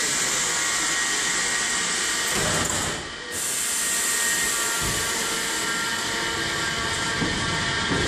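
Budapest Metro Line 1 yellow Ganz articulated train at the platform, a steady hiss, then moving off with a low rumble of motors and wheels building from about five seconds in.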